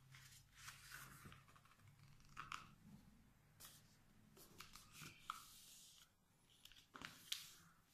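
Faint rustling and scraping of a sheet of paper being folded by hand, with fingers sliding along to press the crease flat, in a scattering of short scratchy strokes.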